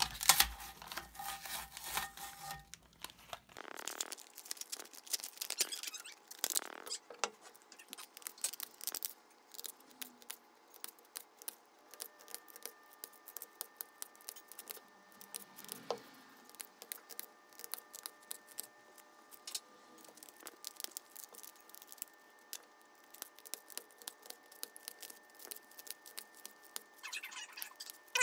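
Scissors snipping away the support material and strands of a white 3D-printed plastic part: many small, sharp, irregular clicks and snips. During the first few seconds there is fuller rustling and handling as the print is worked loose from painter's tape on the print bed.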